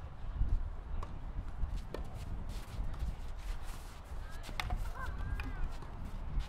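Tennis ball struck by rackets during a doubles rally: a few sharp pops over a low rumble, the loudest, a volley at the net, about two-thirds of the way through.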